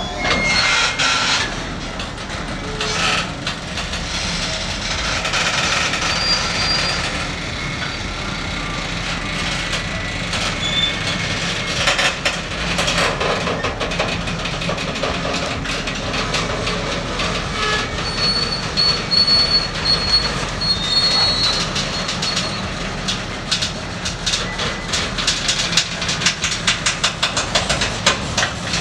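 Covered hopper cars of a freight train rolling very slowly over a grade crossing, with clicks and clacks from the wheels on the rails. Brief high-pitched wheel squeals come twice, once about six seconds in and again around eighteen to twenty-two seconds, and the clacking comes faster near the end.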